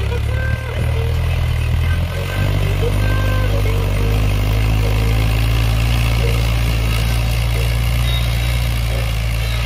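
Mahindra 575 DI XP Plus tractor's four-cylinder diesel engine running steadily under load while pulling a tine cultivator through dry soil.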